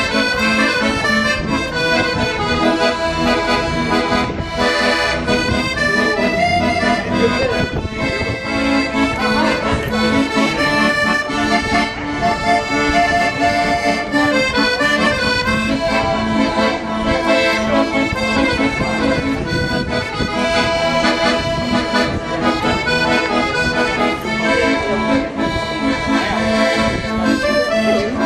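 An accordion playing a tune without pause, the melody moving over sustained chords.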